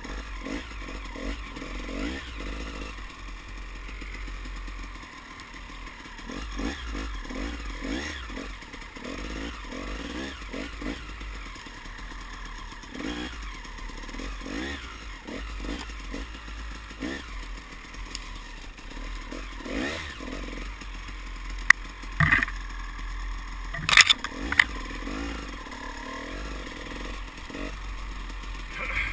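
Small off-road vehicle engine running, its pitch rising and falling as the throttle changes. A few sharp clattering knocks come about three-quarters of the way through.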